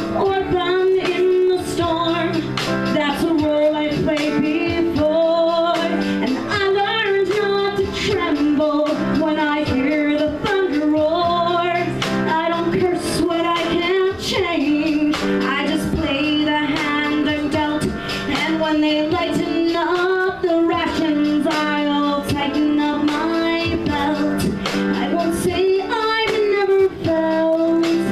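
A woman singing a musical-theatre song live, with piano accompaniment.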